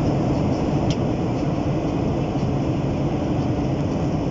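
Steady cabin noise of a jet airliner in flight, heard from inside the cabin: the even rush of engine and airflow, strongest in the low range and unchanging throughout.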